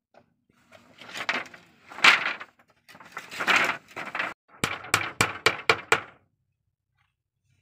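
Sawn wooden planks clattering and scraping as they are dropped and slid onto a frame of round poles, followed about four and a half seconds in by a quick run of about eight hammer blows nailing a plank to the frame.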